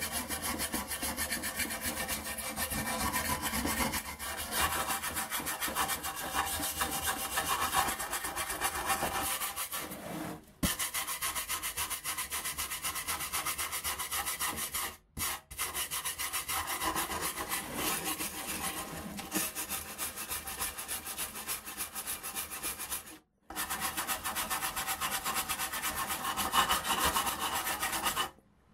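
Flat blade of a hand scraper scraping flaking paint and corrosion off the metal lid of a WWII German machine-gun ammunition box, in fast back-and-forth strokes: the stripping stage before putty and paint. The scraping stops briefly three times, about ten, fifteen and twenty-three seconds in.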